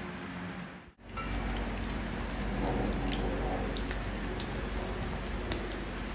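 Food frying in hot oil: a steady sizzle with scattered sharp pops, starting about a second in.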